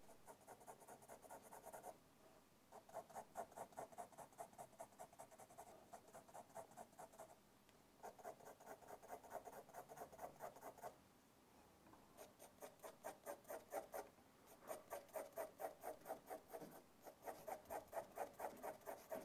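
Faint pencil hatching on drawing paper: quick repeated strokes, about four a second, in runs of a few seconds broken by short pauses. The pencil is laying dense parallel lines to shade a cast shadow.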